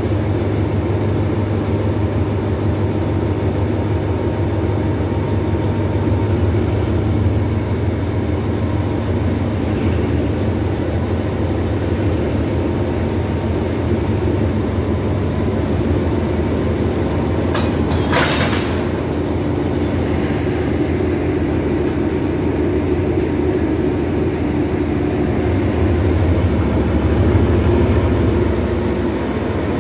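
Hitachi-built State Railway of Thailand diesel-electric locomotive running steadily with a deep, constant engine hum. A short hiss cuts across it about eighteen seconds in.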